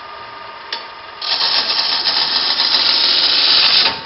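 A wood lathe runs with its motor humming steadily. About a second in, a bowl gouge bites into the spinning bowl blank in a pull cut, making a loud, steady cutting noise that stops abruptly just before the end.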